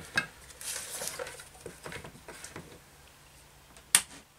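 Light handling sounds, small taps and rustles of things being moved on a workbench, then one sharp click about four seconds in as a homemade UV LED curing station is switched on.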